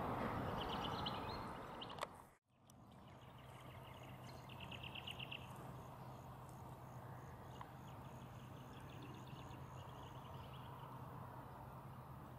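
Steady jet airliner engine noise from a Boeing 717 on approach fades and cuts off about two seconds in. Then a faint steady low hum continues, with birds chirping and giving short rapid trills at intervals.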